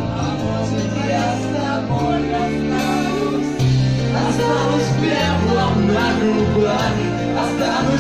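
Karaoke backing track playing loudly, with held bass notes changing every second or so, and a voice singing over it that is clearer from about four seconds in.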